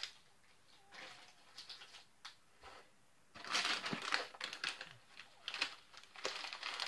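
Plastic snack packaging crinkling and rustling in irregular bursts as things are rummaged through and a bag of corn nuggets is pulled out. The loudest rustling comes midway.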